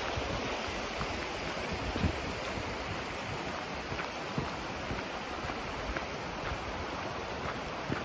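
Shallow, fast-flowing river rushing over rocks in small rapids: a steady, even rush of water, with a little wind on the microphone.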